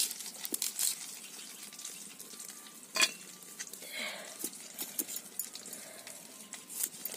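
Dry garlic skins crackling and rustling as cloves are peeled by hand against a blade, with scattered small clicks and one sharper click about three seconds in.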